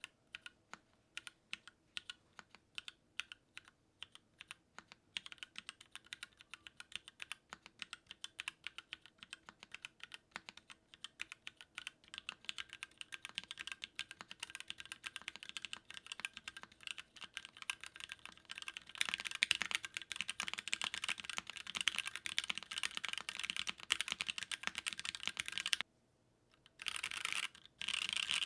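Typing on a custom Planck mechanical keyboard in a Gridiron case, with Gateron Yellow linear switches, a white ABS plate and DSS keycaps. Slow single keystrokes at first build into fast, continuous typing, then a short pause near the end and two quick bursts of keystrokes.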